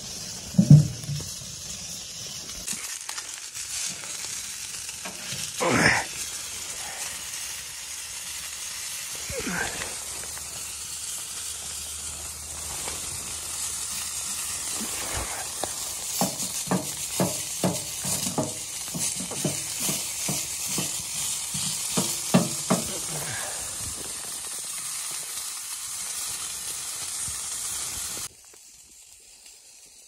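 Chicken pieces sizzling in a wire grill basket over a wood stove's fire, a steady frying hiss. A couple of knocks come early on, and a run of quick clicks and taps follows in the middle. The sizzle cuts off suddenly just before the end.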